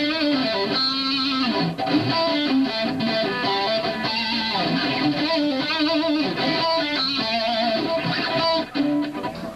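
Rock music led by electric guitar, playing steadily and then cutting off abruptly shortly before the end.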